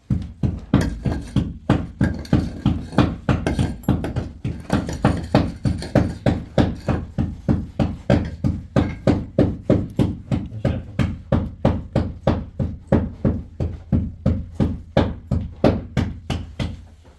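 Steady rhythmic knocking, about three to four strikes a second, over a low steady hum; it starts and stops abruptly.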